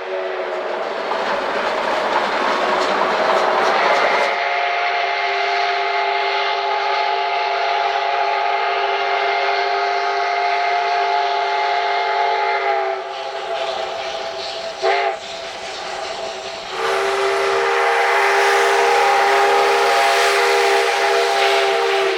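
Steam locomotive whistle blowing long, steady blasts, each held for several seconds, over the rush of steam and the running train.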